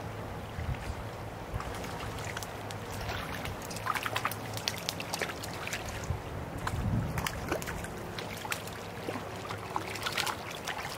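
Creek water running and trickling, with small sharp splashes scattered through, more frequent from about four seconds in.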